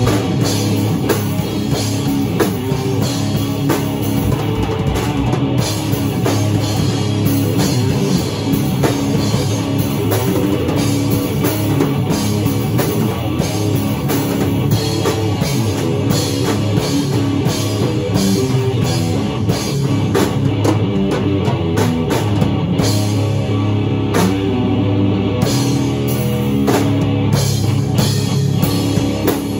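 Rock music played on a drum kit and guitar, a riff running steadily with regular drum hits.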